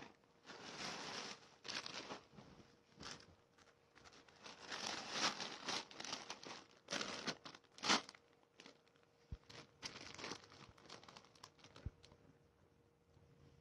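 Clear plastic clothing packaging crinkling and rustling in irregular bursts as it is handled, dying away after about nine seconds. A couple of faint knocks follow near the end.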